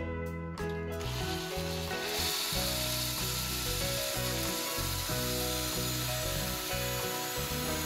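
Makita cordless drill spinning a 3D-printed ABS ball bearing that runs on 6 mm airsoft pellets, at about 1200 RPM; the steady rough hiss of the plastic balls rolling starts about a second in. Background music plays underneath.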